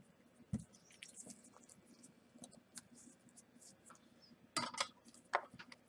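Faint clicks and clinks of small metal hand tools being handled and set down on a workbench, with one low thump about half a second in and a quick cluster of clicks near the end.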